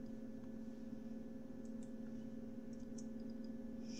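A few faint computer-keyboard key clicks over a steady low electrical hum.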